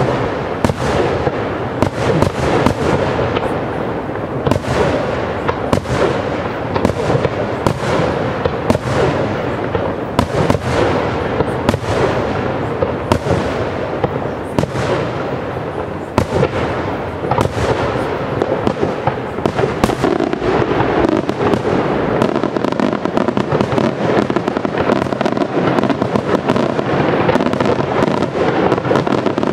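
Aerial firework shells bursting in a dense, unbroken barrage: many rapid, overlapping bangs over a continuous rushing crackle.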